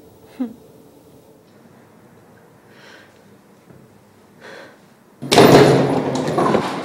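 Quiet room tone, then about five seconds in a sudden loud rattle as the metal lattice gate of an old elevator slides open.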